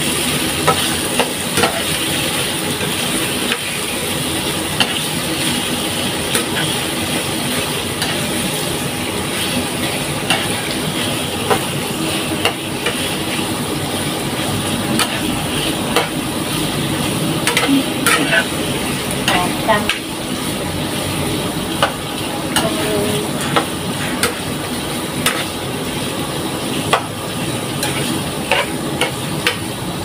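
Shrimp sizzling in oil in a nonstick frying pan while a spatula stirs and scrapes them around, with frequent short clicks and taps of the spatula against the pan.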